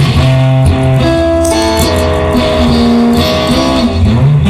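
Electric guitar playing held, changing notes over a bass line in an instrumental passage between sung lines of a rock-blues song.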